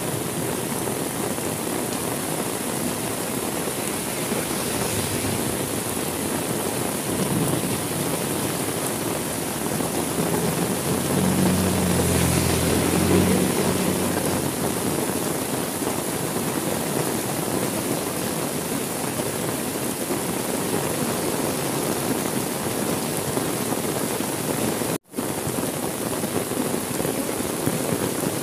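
Steady heavy rain falling on surfaces, with a low rumble of thunder a little before halfway through. The sound cuts out for an instant near the end.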